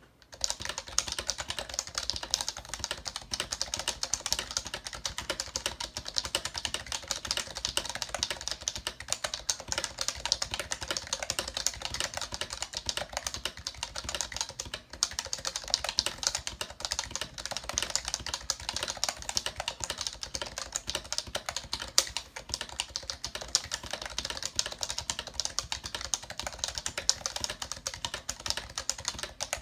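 Fast, continuous typing on a Happy Hacking Keyboard (HHKB) fitted with heavy BKE Redux domes: a dense run of loud, almost clicky keystrokes, with a short break about halfway through.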